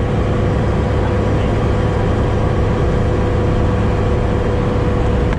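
Sherp amphibious ATV's Kubota four-cylinder turbodiesel running at steady revs, heard from inside the cab, with a steady low drone and an even whine over it while the vehicle pushes through broken ice and water.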